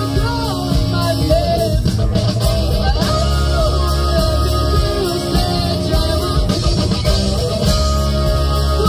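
Live rock band playing: a female singer over electric guitars, bass guitar, drum kit and keyboards, loud and without a break.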